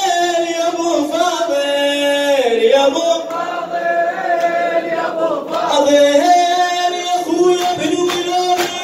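Men's voices chanting a Shia mourning lament (latmiya) together, holding long notes that slide between pitches. Near the end, sharp rhythmic slaps of chest-beating (latam) come in under the chant.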